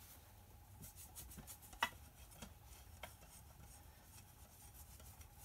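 A cloth rubbing over a metal clock case as it is wiped clean, faint, with a few light clicks and taps; the sharpest tap comes a little under two seconds in.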